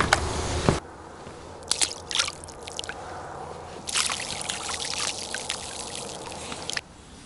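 Handfuls of grain groundbait hitting calm water, pattering and splashing on the surface: a short spatter about two seconds in, then a longer, denser one from about four seconds in. It follows a steady rushing noise that cuts off abruptly under a second in.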